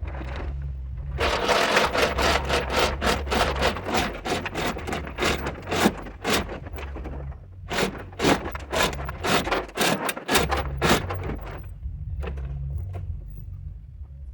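Hoist being worked to lift a truck cab: rapid ratcheting clicks, about five a second, in two long runs with a short break in the middle, over a steady low hum.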